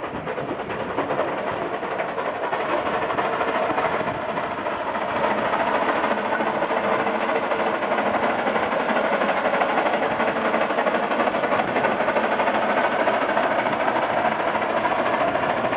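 Avery undermounted steam traction engine running and moving off: a loud, steady hiss of steam with a fast mechanical clatter from the engine and running gear, building up over the first second.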